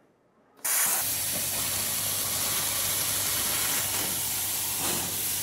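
CNC plasma cutting torch firing and cutting 16-gauge sheet steel: a loud, steady hiss of the arc and air jet that starts abruptly a little over half a second in.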